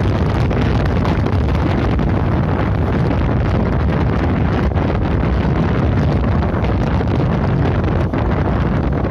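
Loud, steady wind buffeting the microphone of a camera carried on a moving bike, an even rumbling rush heaviest in the low end.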